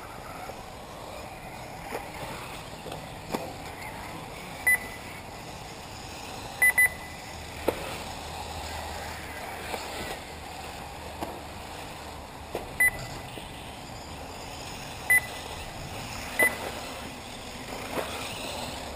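Short, high electronic beeps from the race's lap-timing system, single and once doubled, at irregular intervals, each marking a buggy crossing the timing line. Underneath is a steady whir of 1/8-scale electric off-road buggies running on the track, with a few sharp knocks.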